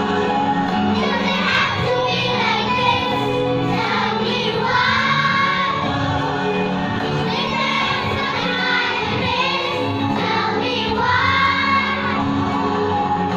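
A choir of young children singing a song together.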